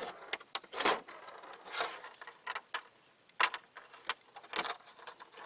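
Ramrod being worked down a small black-powder cannon's barrel to tamp the packing onto the powder charge: a series of short scraping strokes and knocks at uneven intervals, with light clicks between them.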